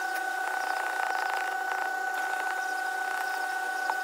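Fingernails picking and scraping hardened windshield-repair resin off the glass: a few small clicks and a scratchy rustle about a second in, over a steady high-pitched hum.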